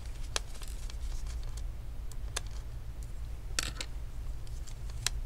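A few small, scattered clicks and taps of a screwdriver on the screws and plastic cooling fan inside an opened laptop, over a steady low hum.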